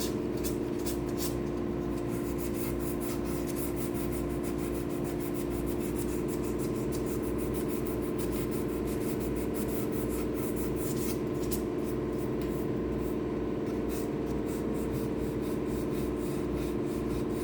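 Sandpaper rubbing over cured epoxy pour fill on a guitar body, a run of short scratchy strokes, over a steady hum.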